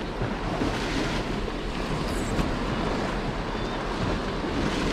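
Wind buffeting the microphone over the steady wash of the sea against the rocks.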